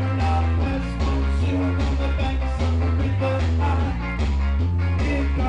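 Loud amplified rock music with a heavy bass line, played through a pub's sound system for a man performing with a microphone.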